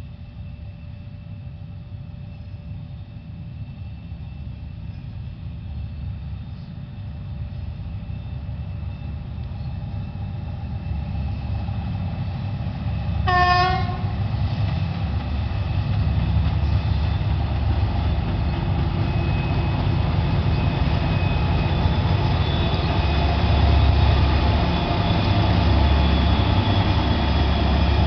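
Two 2TE10M diesel locomotives in double traction pulling away, their 10D100 two-stroke opposed-piston diesel engines running with a low rumble that grows steadily louder as they take load. A short horn blast sounds about halfway through.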